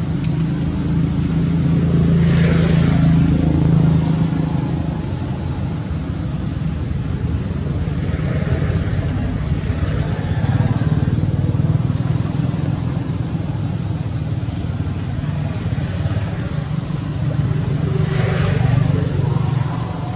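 Steady hum of a motor vehicle engine, swelling louder about two seconds in and again near the end.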